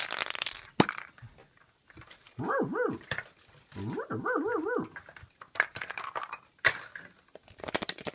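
Two quick runs of dog-like barks, three and then four, in the middle, set among sharp clicks of plastic surprise-egg capsules being snapped open and handled.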